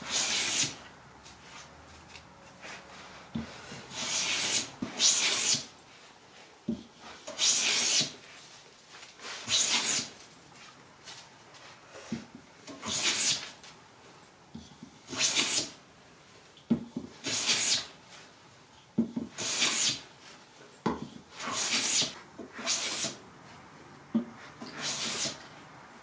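Wooden hand plane taking long shavings off a board: a dozen or so hissing strokes, one about every two seconds, with light knocks between strokes.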